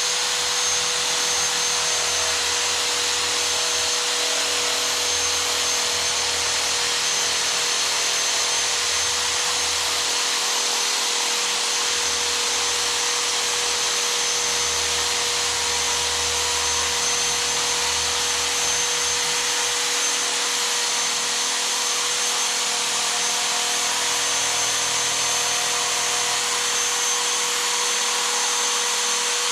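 A handheld power tool running steadily at one constant speed for the whole time, with a steady high whine.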